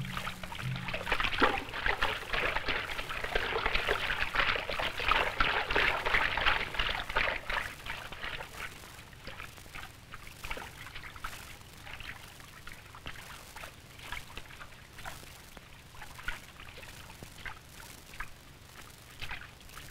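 Water splashing and sloshing heavily for about eight seconds, then thinning to scattered single splashes.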